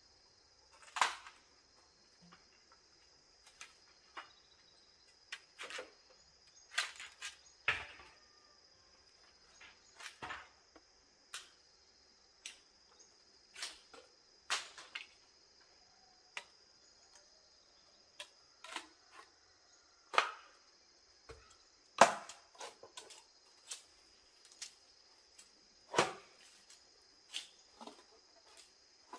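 Irregular sharp knocks and chops, about one every second or two and some much louder than others, typical of tools striking wood or bamboo, over a steady high chirring of insects.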